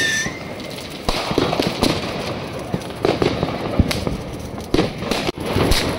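Fireworks and firecrackers going off: about six sharp cracks at uneven intervals over a steady background din.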